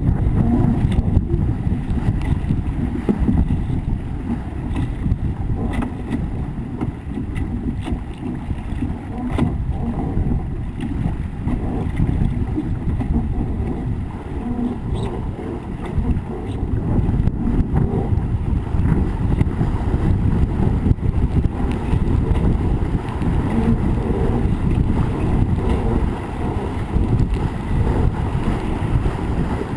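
Heavy wind buffeting on the microphone of a camera mounted on a racing sailing dinghy, mixed with water rushing past the hull as it sails fast through chop. Occasional sharp ticks are heard throughout.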